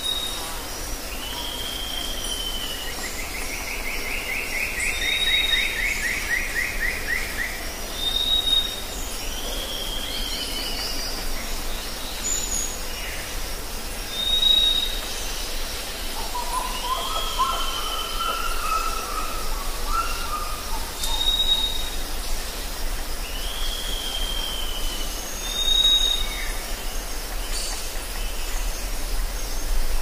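Rainforest birdsong over a steady high hiss. A short, high whistle repeats every three or four seconds among downslurred whistles, with a fast trill a few seconds in and a lower warbled phrase about halfway through.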